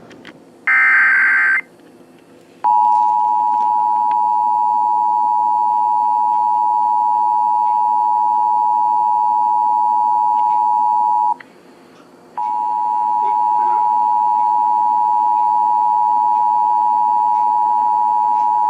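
The last burst of an Emergency Alert System digital header, a short buzz of data, followed from about three seconds in by the EAS two-tone attention signal: a steady dual tone heard over FM radio. The tone cuts out for about a second around the eleven-second mark, then starts again and holds.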